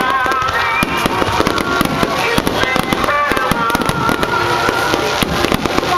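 Fireworks display: aerial shells bursting and crackling in rapid, irregular succession, many pops a second.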